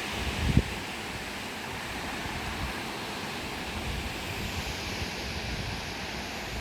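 Black Sea surf washing steadily, with wind buffeting the microphone. A short low thump about half a second in.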